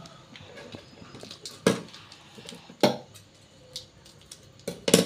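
Metal utensil knocking against a metal cooking pot of soup: a few sharp clinks, the loudest pair near the end.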